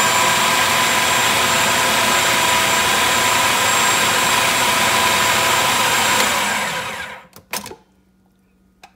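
Electric countertop food processor running steadily as it minces celery, its motor winding down and stopping about six to seven seconds in. A couple of short clicks follow.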